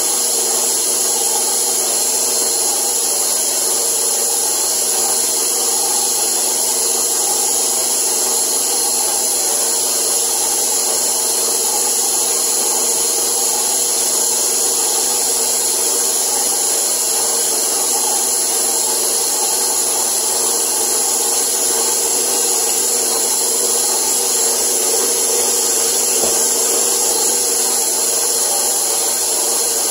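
Electric stand mixer running steadily at one speed, its dough hook kneading bread dough in a stainless steel bowl while the added flour works into the still-loose dough.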